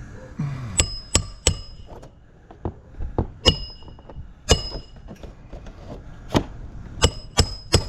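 Hammer driving galvanized roofing nails to re-nail a vinyl siding corner: about a dozen sharp strikes with a short metallic ring, coming in uneven groups.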